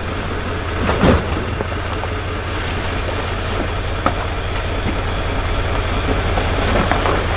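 A motor vehicle running with a steady low rumble, with a few short knocks and rattles, the strongest about a second in and another about four seconds in.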